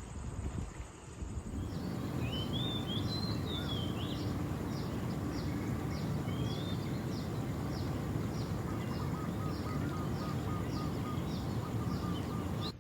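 Outdoor ambience with birds: one bird repeats a short, high, falling call about twice a second, while another gives a few warbling song phrases, over a steady low rumble of background noise.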